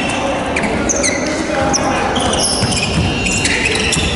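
Basketball game on a hardwood gym floor: sneakers squeaking in short high chirps and the ball bouncing, with players' voices in the echoing hall.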